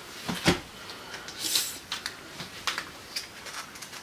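Handling noises: a thump about half a second in, then rustling and scattered light clicks as items are picked up and moved.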